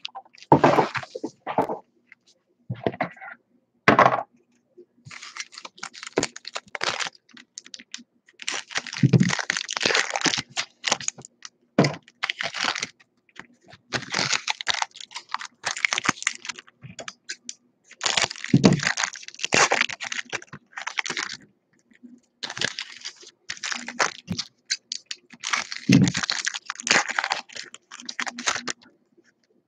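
Foil wrappers of baseball card packs crinkling and tearing open in the hands, in clusters of crackling every couple of seconds with short pauses between.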